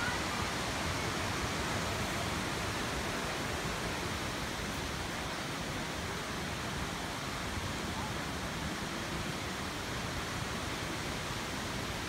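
Steady, even rush of a high waterfall whose water drops from a cliff onto the rocks below.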